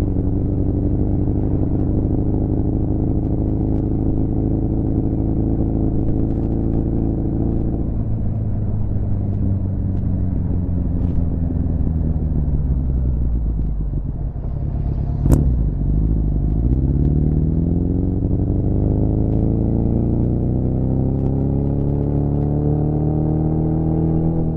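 2006 Suzuki GSF650 Bandit's inline-four engine through a cut-down Beowulf exhaust with no baffle, running loud and steady. Its engine speed slowly drops for several seconds, a sharp click comes about fifteen seconds in, and the revs then rise steadily.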